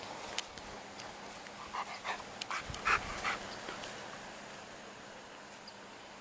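A 14-year-old golden retriever and a 7-week-old beagle puppy play-wrestling, with a quick run of short, high dog yaps and squeaks about two to three seconds in.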